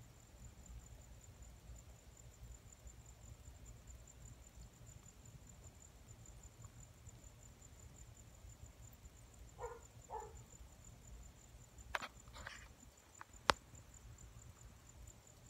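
Faint, steady, high-pitched trill of a night insect over a low rumble. About ten seconds in come two short soft sounds, then two scuffs and a single sharp click near the end.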